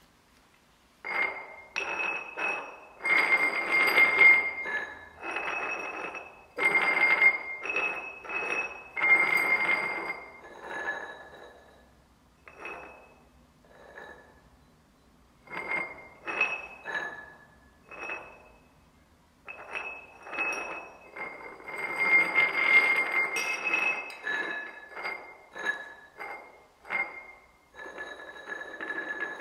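Three upturned drinking glasses being moved about on a hard surface. They scrape and clink over and over, and each glass rings at its own pitch. The three ringing tones together make a major chord.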